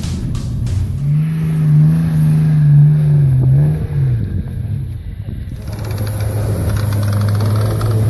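Mitsubishi Pajero 4x4's engine revving high and holding there for about three seconds while it ploughs through deep snow, then dropping away. A few seconds later an engine runs steadily at lower revs with a hiss over it.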